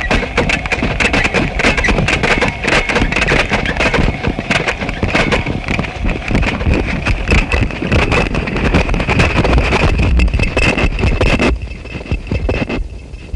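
Harsh noise music: a dense, crackling, rumbling texture with a steady high whine running through it. Near the end it cuts off suddenly, dropping to a much quieter, thinner hiss.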